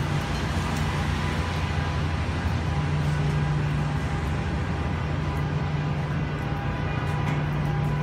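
A steady low mechanical hum over a constant rushing noise, unchanging throughout.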